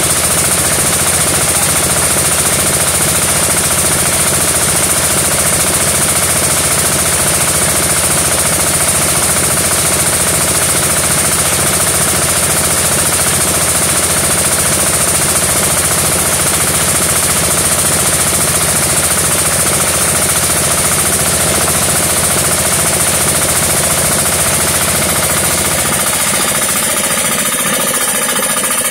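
Small air-cooled engine of a homemade rotary well-drilling rig running steadily as it turns the drill pipe, a loud, rapid, even chugging.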